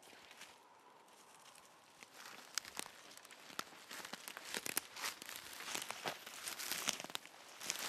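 Footsteps pushing through dry forest undergrowth, with twigs snapping and grass and brush rustling. It starts faint, then from about two seconds in becomes a busy run of sharp crackles.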